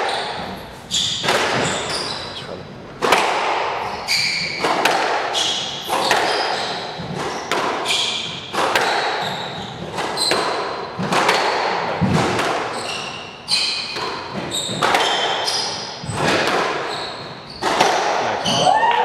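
Squash rally: the ball cracks off rackets and the court walls about once a second, each hit echoing around the court, with short high squeaks of shoes on the court floor in between.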